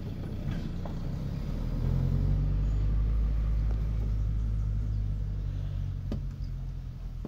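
Low, steady rumble of a motor vehicle's engine running nearby, swelling about two seconds in and easing off near the end. A sharp click about six seconds in.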